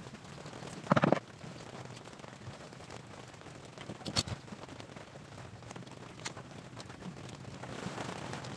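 Handling noise on a plywood speaker cabinet: one loud knock about a second in as the box is shifted on the bench, then a few sharp clicks around four seconds in and another near six seconds as a bar clamp is picked up and set on the cabinet.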